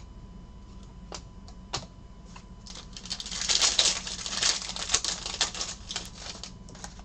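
Foil wrapper of a Panini Chronicles Baseball card pack torn open and crinkled for about three seconds, starting about three seconds in. Before it come a few light clicks of cards being handled.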